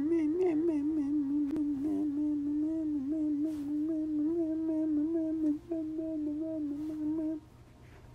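A voice humming one long, drawn-out note, wavering in pitch at first and then held fairly steady. It breaks briefly a little past halfway and stops shortly before the end.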